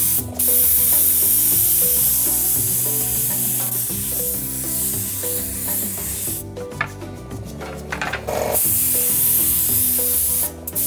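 Compressed-air spray gun hissing as it sprays cocoa butter into a chocolate mould. It sprays in two long bursts, with a pause of about two seconds after roughly six seconds.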